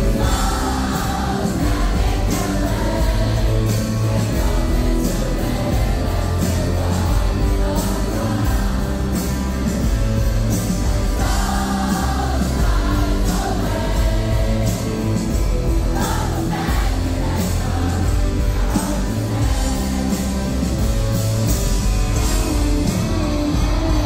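A rock band playing live with singing over it and a steady drum beat, loud and unbroken throughout.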